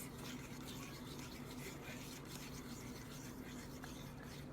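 Small fork stirring thick white glue and food coloring in a mixing bowl: faint, irregular scraping and light clicks of the fork against the bowl, over a faint steady low hum.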